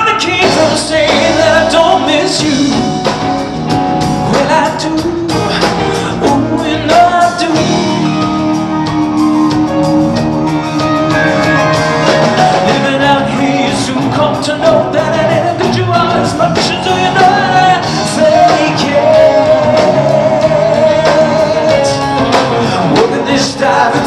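Rock band playing a song live with a man singing lead over electric guitars, bass, keyboards and drums, in a large hall.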